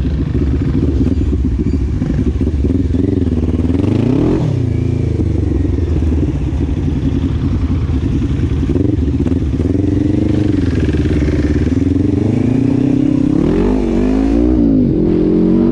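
Sport quad (ATV) engine heard from on board, revving up and down as it pulls away and accelerates, its pitch rising and falling several times with the sharpest climbs near the end.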